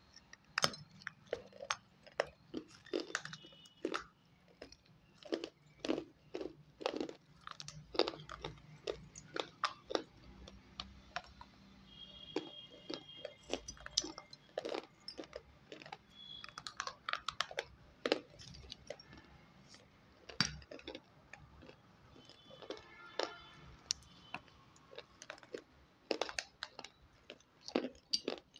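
Dry, hard shards of fired clay pot crunching as they are chewed and snapped apart by hand, in sharp, irregular cracks about one or two a second.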